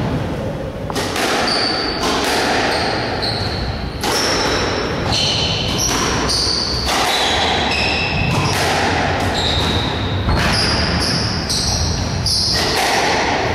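Squash rally: a string of sharp cracks as the rubber ball is struck by the rackets and hits the walls, about one every half second to second, with short high squeaks of shoes on the wooden court floor between them.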